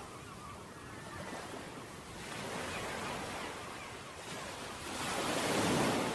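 Ocean waves breaking and washing up a beach, the surf swelling and receding, with the largest wave breaking near the end.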